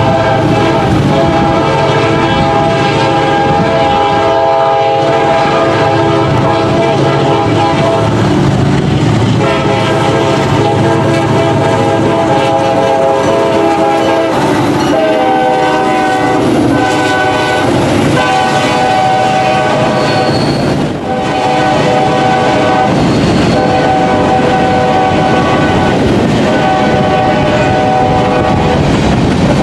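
Five-chime Nathan K5LA air horn on a CSX GP40-2 locomotive blowing a long horn show of several drawn-out blasts at close range, the chord shifting in pitch about halfway through. Underneath are the diesel locomotive's running and the wheels clacking over rail joints.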